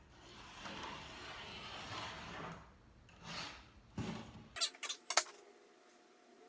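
Handling noise of tools and wood: a soft scraping for about two seconds, then a cluster of sharp clicks and knocks a little past the middle.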